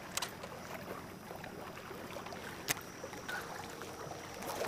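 Small waves lapping against the hull of a bass boat, a soft steady wash, with a faint click a little over halfway through and another near the end.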